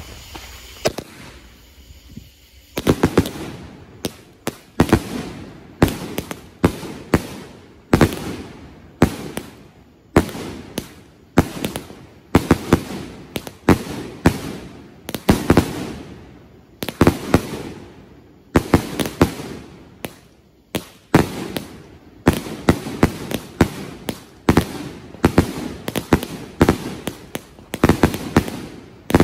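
Three Dead Heat multi-shot firework cakes fired together. A burning fuse hisses for the first couple of seconds. Then, about three seconds in, a continuous string of shots begins: launches and loud bangs in quick irregular clusters, about one cluster a second.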